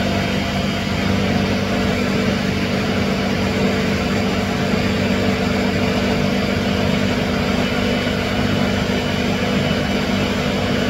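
Ninja blender motor running steadily at speed, puréeing roasted red peppers and garlic, with a constant hum over a rushing whir. The open top of the jar is covered only by a paper towel held in place of the lost lid.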